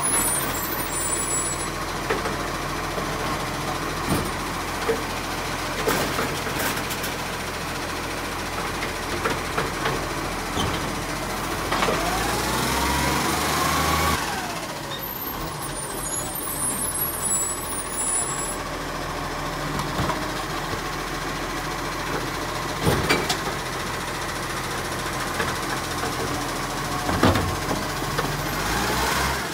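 Side-loader garbage truck's diesel engine running steadily while it empties kerbside bins, with a rising and falling whine around the middle and several sharp clunks spread through. A hiss of air is also heard.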